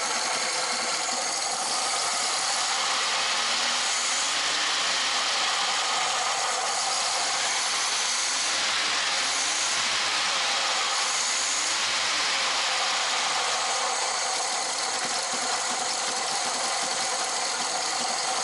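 Ford Transit Mk1 petrol engine idling steadily, warmed up, with a light rattle. The just-repaired carburettor is giving a normal warm idle.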